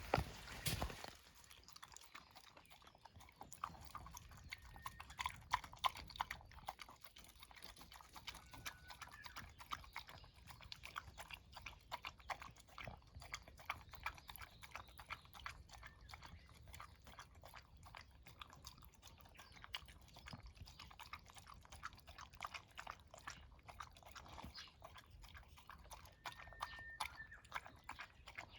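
A pet chewing and crunching its breakfast: a steady run of small, irregular crunchy clicks. A brief louder noise comes right at the start.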